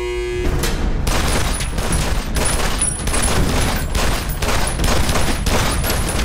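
A handgun fired over and over in a steady string of shots, about two a second.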